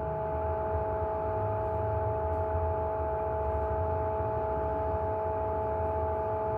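A steady machine hum: several held mid-pitched tones over a low rumble, unchanging throughout.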